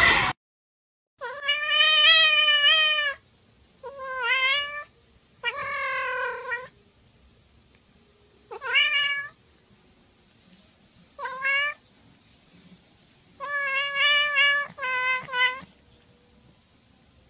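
Domestic cat meowing repeatedly, about seven separate meows with pauses between them. The first meow is drawn out for about two seconds, and the last few come close together with a wavering pitch.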